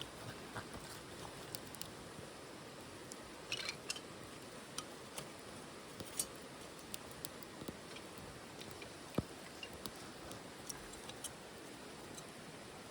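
Wood fire burning in a titanium wood stove, crackling with irregular sharp pops and ticks over a soft steady hiss. There is a brief cluster of pops about three and a half seconds in.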